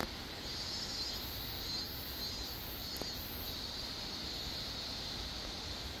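Two sharp clicks, one right at the start and one about three seconds in, from a click beetle on its back snapping its body to flip and jump. Behind them a steady outdoor hiss, with a faint high sound pulsing four times near the start.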